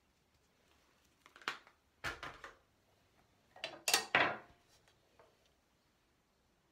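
Makeup tools being handled: small hard objects clattering in three short bursts, the loudest about four seconds in.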